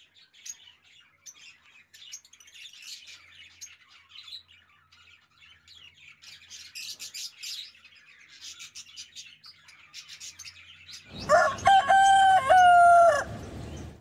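Young budgies chirping faintly. About eleven seconds in, a rooster crows loudly once for about two seconds.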